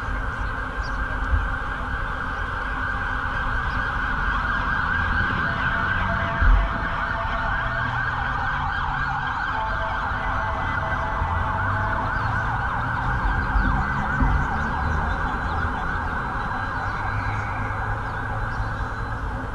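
Busy city street: a loud, steady siren-like wail over the rumble of traffic, with a couple of dull thumps.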